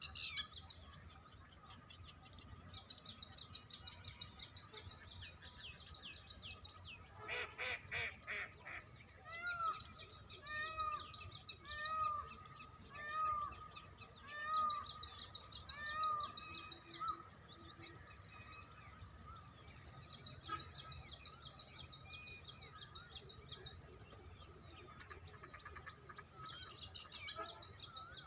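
Several wild birds calling together: runs of rapid, high chirping trills, a harsh chattering burst about seven seconds in, and a clear call that rises and falls, repeated about once a second for several seconds.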